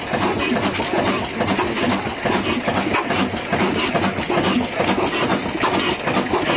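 Old 18 HP horizontal stationary diesel engine running steadily, its heavy flywheel turning, with an even, rhythmic beat.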